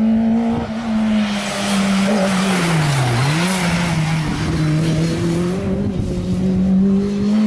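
A small Talbot rally hatchback's engine passing at speed: a high, steady engine note that dips as the driver lifts off about three seconds in, then climbs again as it accelerates away, with a rush of tyre and wind noise as the car goes by.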